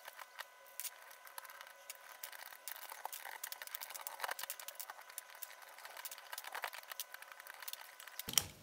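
Keycaps being pulled off a Ducky 2087S mechanical keyboard with Cherry MX Red switches, one after another: quick, faint, irregular plastic clicks and rattles.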